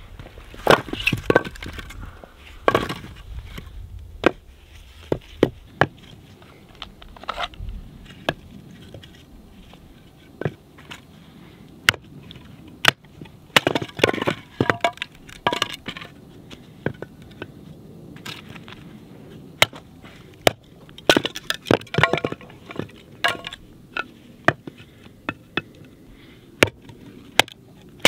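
An armload of split firewood clattering down onto the ground, then firewood being split into kindling: sharp wooden knocks and cracks at irregular intervals.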